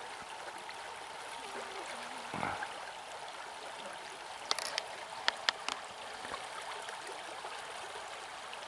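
Shallow river current running steadily past, an even rushing hiss of water. A handful of short sharp clicks sound a little past the middle.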